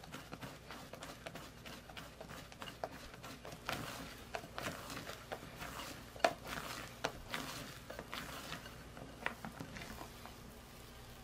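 Rubber spatula folding and scraping thick butter-cake batter around a glass bowl, mixing it until glossy. It makes an irregular run of soft taps and scrapes, with a louder tap a little past the middle.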